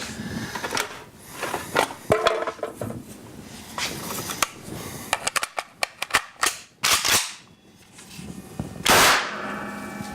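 AK-47 rifle action clacking and clicking as it is worked, then a single loud gunshot about nine seconds in, an apparent accidental discharge.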